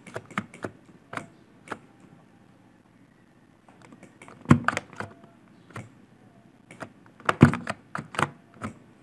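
Computer keyboard keys and mouse buttons clicking in short irregular clusters, with a pause of about two seconds in the middle; the loudest clicks come in the second half.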